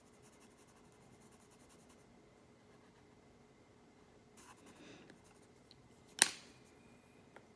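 Quiet room tone with a faint rustle near the middle and one sharp click about six seconds in.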